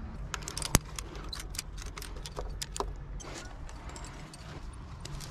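Metal climbing gear clinking: carabiners and protection knocking together as an anchor is set up, a string of sharp clicks with one louder clack about a second in. A steady low rumble of wind on the microphone lies underneath.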